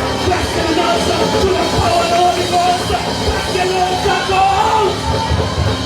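Live church band music with a drum kit and voices singing, loud and continuous.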